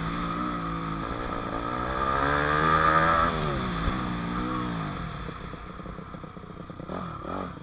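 2006 Yamaha 250F dirt bike's four-stroke single-cylinder engine under a rider, revving up and down with the throttle, loudest about two to three seconds in. For the last couple of seconds it drops to low revs, with a few clattering knocks near the end.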